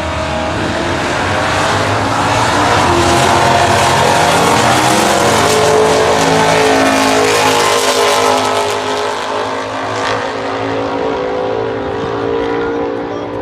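Two stock-class drag cars, one a 1966 Chevy Impala with an automatic, launching and accelerating at full throttle down the strip. The engine note climbs and drops back at each gear change, then fades as the cars pull away.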